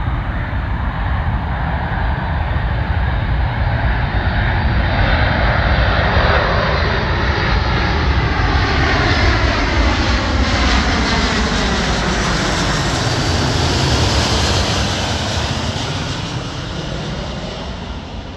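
Boeing C-17A Globemaster III's four Pratt & Whitney F117 turbofan engines passing low overhead on landing approach. The jet noise builds, sweeps down in pitch as the aircraft passes, and fades away near the end.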